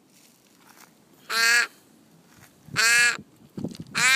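Young raven begging, giving three short calls, each about a third of a second long, with its gape wide open.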